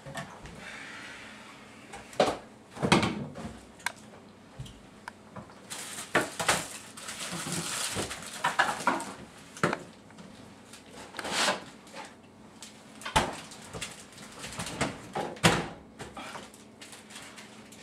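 Kitchen handling sounds: a refrigerator door, a bowl and food packages on the counter, and a cupboard door, heard as a string of irregular knocks and clatters with a rustle partway through.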